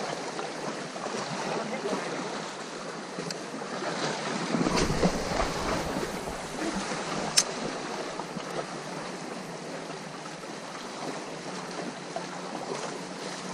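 Sea waves washing with steady wind noise. A gust buffets the microphone with a low rumble about five seconds in, and there is one sharp click a couple of seconds later.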